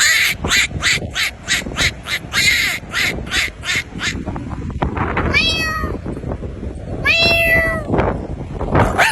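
An animal calling: a fast run of harsh, noisy calls at about three a second for roughly four seconds, then two longer pitched cries that fall in pitch.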